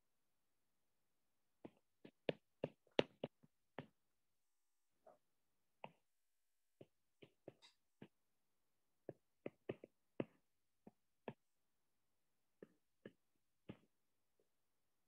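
Stylus tapping and clicking on a tablet's glass screen during handwriting: about two dozen short, irregular taps, most tightly bunched between about two and four seconds in, with near silence between them.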